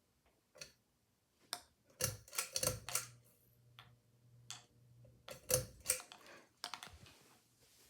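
A series of irregular sharp clicks and knocks, with a faint low hum for about two seconds in the middle.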